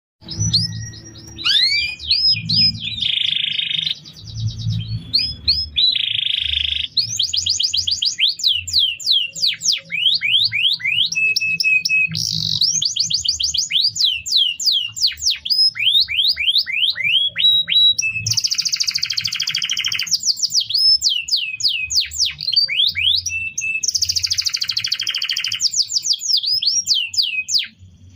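Domestic canary singing a long unbroken song of quick rising whistled notes, fast trills and buzzy rolls, with a faint low rumble underneath.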